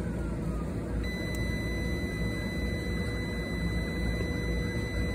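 Fieldpiece SC680 clamp meter's continuity beeper sounding one steady high beep, starting about a second in, as its leads bridge two terminals of a new scroll compressor's motor windings: the near-zero reading of about 0.83 ohms of a healthy winding. A steady low background rumble runs underneath.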